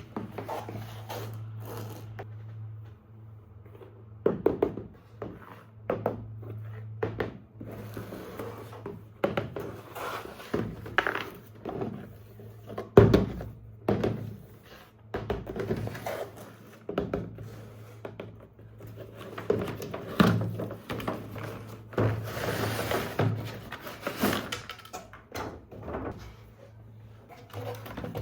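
Handling noises, probably of toys and their packaging being unboxed: irregular thunks, knocks and clicks, with a longer rustle about two-thirds of the way through, over a steady low hum.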